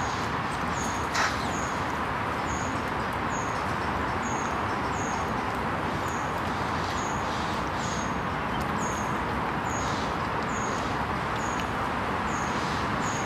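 A bird repeating a short, high, falling chirp about every two-thirds of a second over a steady background hiss, with a single click about a second in.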